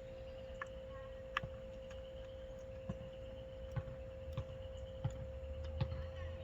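Scattered light clicks and taps of small carburetor parts being handled and seated, over a steady hum.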